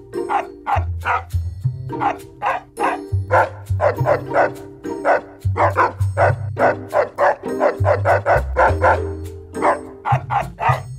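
Soundtrack music with a steady bass line and held chords, over which short dog barks repeat in a quick beat, about three a second.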